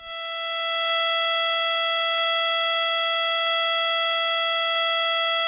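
A steady high-pitched electrical whine, one unchanging tone with overtones, in the Cessna 210's intercom/radio audio feed, with no engine noise heard. It swells up over the first second, then holds level.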